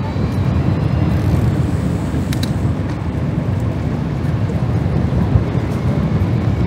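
Steady low rumble of outdoor street ambience, with one short, high metallic clink about two and a half seconds in.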